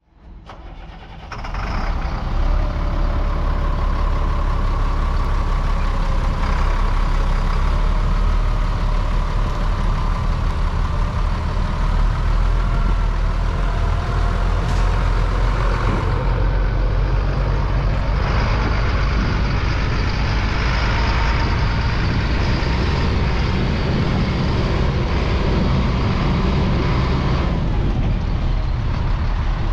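Chevrolet medium-duty rollback truck's engine idling steadily, starting about a second and a half in.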